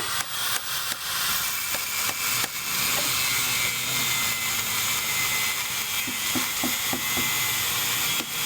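Building work with hand tools: a steady scraping rasp for several seconds, then a quick run of about five knocks near the end.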